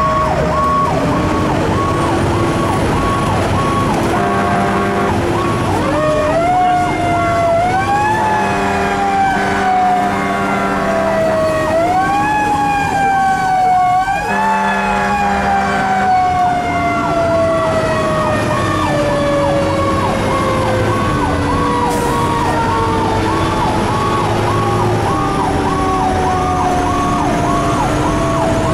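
Fire engine running emergency on a call: its siren rises in steps, then winds slowly down in pitch, with a second, rapidly pulsing siren tone underneath. The truck's horn sounds in three blasts, about 4, 8 and 14 seconds in. Heard from inside the cab.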